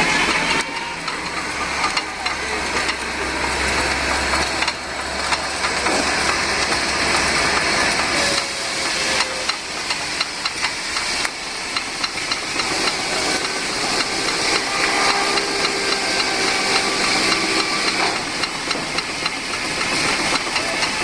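Peerless Z3 steam traction engine running under steam with a loud, steady hiss. From about halfway through, a quick run of sharp beats joins the hiss.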